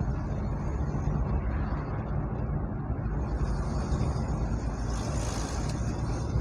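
Steady road noise of a moving car: a low engine and tyre rumble, with a higher hiss coming up about three seconds in.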